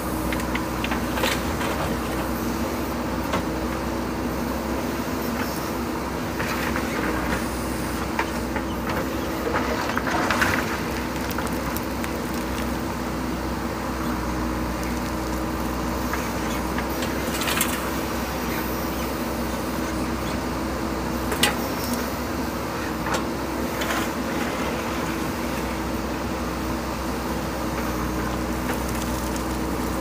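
JCB 3DX backhoe loader's diesel engine running steadily under load as the backhoe arm digs and swings, with a few short sharp clanks from the bucket and ballast now and then.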